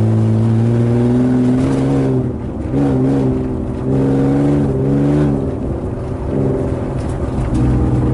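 BMW E36's engine running under way, heard from inside the stripped-out cabin, a steady drone that twice eases off briefly and shifts pitch before picking up again.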